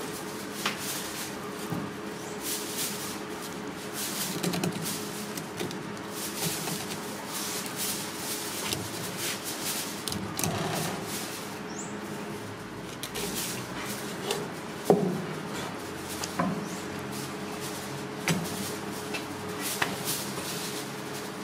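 Cleaver tapping and scraping on a plastic cutting board as a fish is filleted: scattered light knocks and clicks, with one sharper knock about fifteen seconds in, over a steady faint hum.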